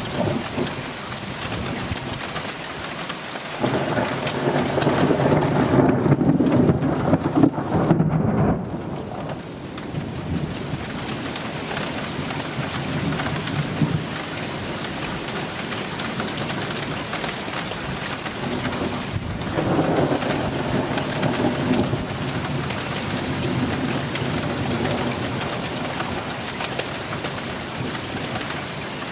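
Thunderstorm: steady rain falling throughout, with two long rolls of thunder. The first roll comes a few seconds in and lasts about five seconds; the second starts about two-thirds of the way through and fades more slowly.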